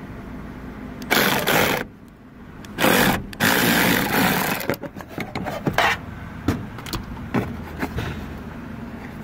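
Cordless drill/driver run in short bursts, about a second and then about a second and a half, backing out a bolt. A string of light metal clicks and knocks follows.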